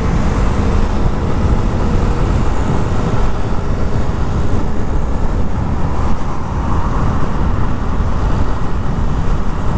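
Steady wind rush and low rumble on the microphone of a motorcycle on the move, with the Yamaha Sniper 150's small single-cylinder engine and tyre noise beneath it.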